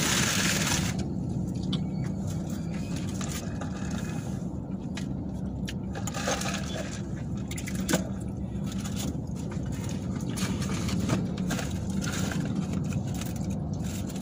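Steady low hum inside a parked car's cabin, with scattered light rustles and clicks of paper food wrappers being handled while eating.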